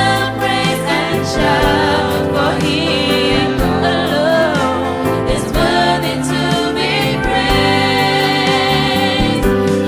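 Youth choir singing a gospel song over a band, with sustained voices and drum hits.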